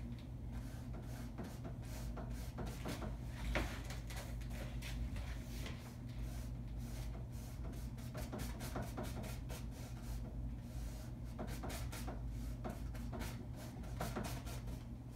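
Paintbrush strokes on a stretched canvas: a string of short, irregular, scratchy dabs and brushes, with one louder tap about three and a half seconds in, over a steady low hum.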